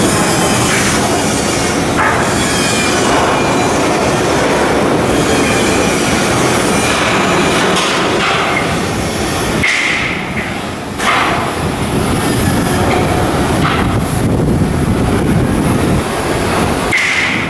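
Loud continuous metalwork and machinery noise from shipbuilding work, a rumbling clatter with brief high metallic screeches about ten seconds in and again near the end.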